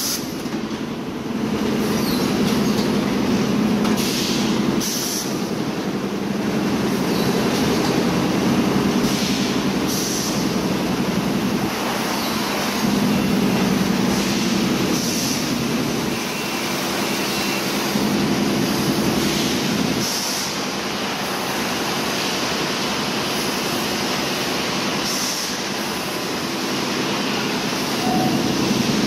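Bottled-water production line machinery running: a steady mechanical hum and rattle of blow-moulding, filling and conveyor machines, broken several times by short hisses of released compressed air.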